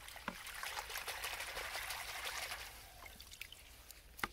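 Water splashing and trickling as a bunch of freshly pulled coriander is swished in a plastic bucket of muddy water, busiest for the first three seconds. There is a single sharp click near the end.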